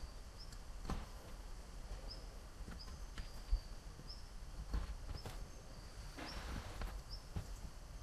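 Light taps and knocks of cane flute bodies and a pencil on a wooden workbench as hole positions are marked on the cane in pencil. Several faint, short high chirps recur through it.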